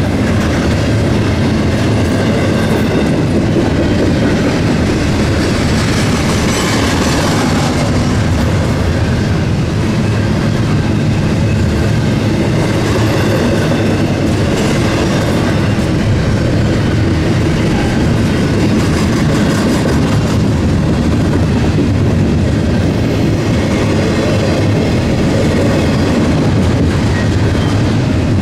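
Norfolk Southern eastbound intermodal freight train rolling past at close range: a steady, loud noise of steel wheels on the rails.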